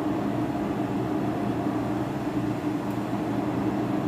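A steady, even hum of an electric motor running, low-pitched.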